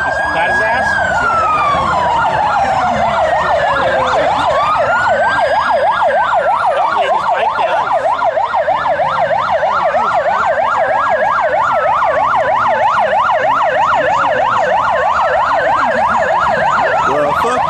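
Police sirens sounding together: a slow wail rising and falling about every five seconds over a fast, steady yelp.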